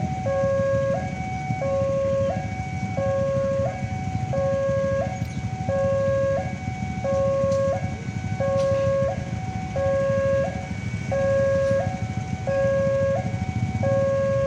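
Railway level-crossing warning siren sounding a continuous two-tone alarm, switching evenly between a lower and a higher tone about every three-quarters of a second, over a steady low rumble.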